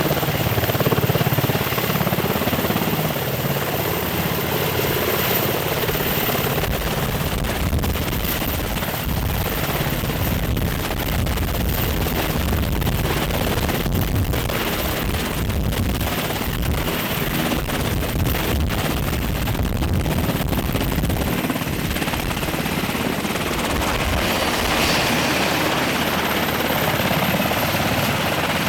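Military helicopter running steadily, with the continuous thudding of the rotor and the noise of the turbine engines.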